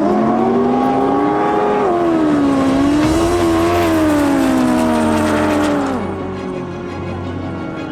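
Racing jet ski engine running at high revs, its pitch rising and wavering, then falling away and fading about six seconds in.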